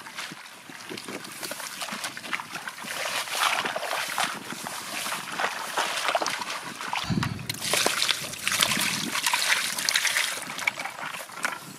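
Splashing and sloshing of shallow muddy water as a person wades and gropes for fish by hand. After about seven seconds, a stream of muddy water splatters and trickles over live catfish in a woven basket.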